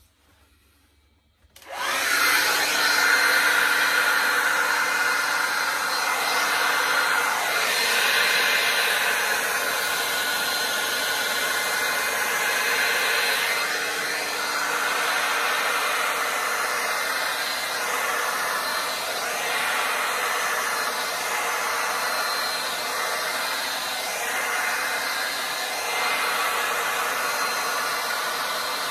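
Handheld hair dryer switched on about two seconds in and running steadily, its airflow blowing wet acrylic pour paint across a canvas.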